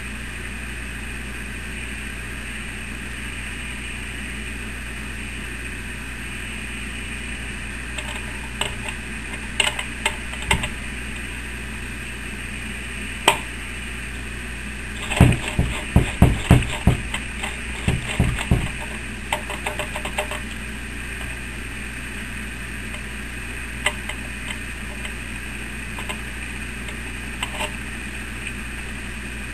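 Singer sewing machine stitching slowly through a thick sheath. There are a few clicks, then a run of about eight heavy needle strokes in the middle, then lighter clicks, all over a steady hum.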